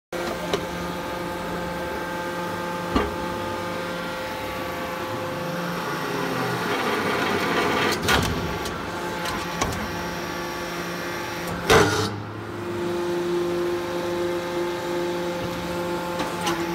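Hydraulic salt block press running: a steady hum from its pump and motor, with a few sharp knocks, the loudest about twelve seconds in.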